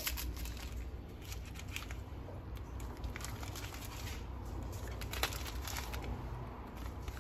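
Paper wrapper of a Chocolate Abuelita tablet crinkling and rustling in hand as the broken pieces are unwrapped, with irregular sharp crinkles and small clicks over a steady low hum.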